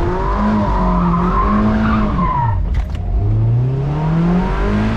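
A Mazda NC Miata's four-cylinder engine revving hard under acceleration. Its pitch climbs, drops sharply about two seconds in, then climbs again, with the tyres squealing through the turn in the first half.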